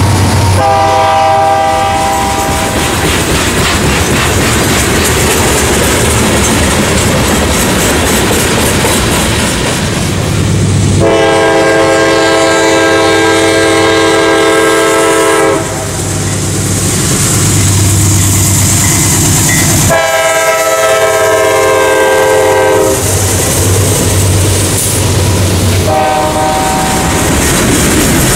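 Freight train cars rolling by with a steady rumble and clatter of wheels on the rails, while a diesel locomotive's multi-chime air horn sounds four blasts: a short one near the start, a long one, a medium one, and a short one near the end.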